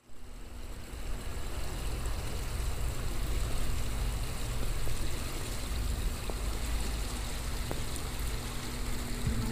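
Steady outdoor noise of wind rumbling on the microphone, with water running along a concrete channel.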